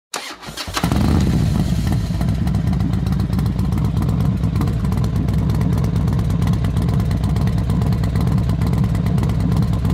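Motorcycle engine running steadily. It comes in under a second in, after a few short clattery sounds.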